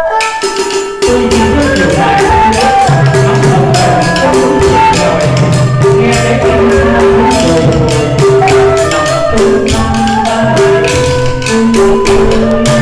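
Traditional Vietnamese chèo ensemble playing an instrumental passage. A two-string nhị fiddle and bamboo flute carry a held, ornamented melody over hand-beaten barrel drum, a small stick-played chèo drum and a wooden clapper keeping quick, regular strokes. The full ensemble comes in about a second in.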